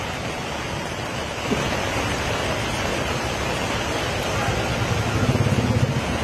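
Heavy rain pouring down as a steady, dense hiss.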